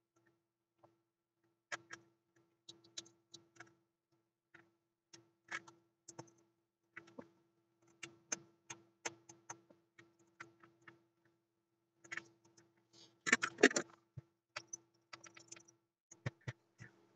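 Light, irregular clicks and taps of a soldering iron and fingers working on an amplifier circuit board and metal chassis while transistors are being desoldered, with a louder clatter of handling about thirteen seconds in. A faint steady hum runs underneath.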